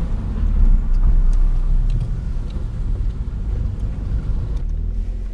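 Renault Clio 197's 2.0-litre four-cylinder engine and road noise as the car drives at low speed, a steady low rumble.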